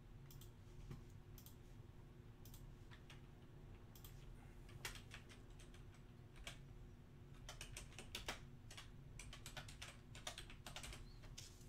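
Faint typing on a computer keyboard: scattered keystrokes, coming thicker and faster in the second half, over a low steady hum.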